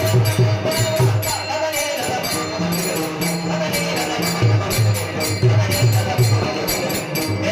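Devotional kirtan music: rhythmic low drum strokes with constantly jingling hand cymbals and a sustained held note. The drum strokes drop out for about two seconds, then come back.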